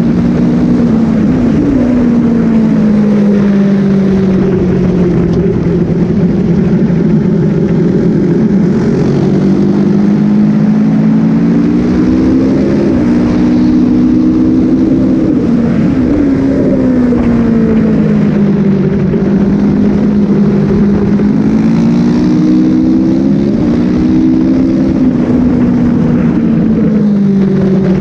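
Motorcycle engine at speed on a race track, its pitch rising and falling with throttle and gear changes, climbing in steps twice. Heard from onboard with steady wind rush.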